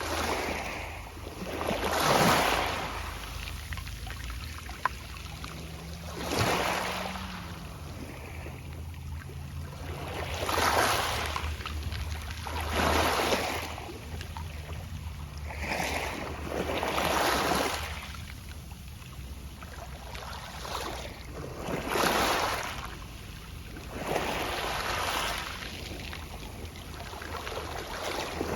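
Small sea waves breaking onto a pebble beach, each one swelling and fading with the soft rattle of pebbles, about seven surges a few seconds apart.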